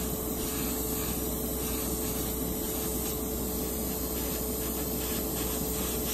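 Airbrush spraying thinned hobby paint, a steady hiss with a low steady hum beneath it.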